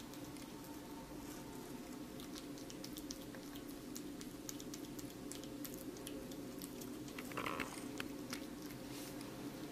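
Cat chewing food, a run of quick irregular clicks over a steady low hum.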